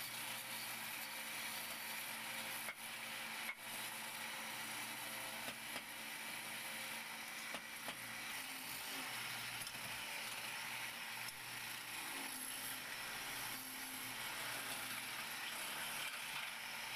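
Wood lathe running with a low motor hum while a hand-held turning chisel cuts the spinning wooden spindle, giving a steady hiss of shavings.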